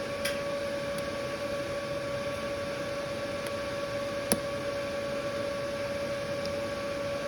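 Steady electrical machine hum at one constant pitch, with a light click about a quarter second in and a sharper click about four seconds in.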